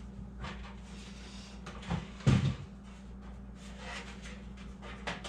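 Knocks and clunks of a motherboard being shifted and pushed into place inside a computer case, with one louder thump about two and a half seconds in, over a steady low hum.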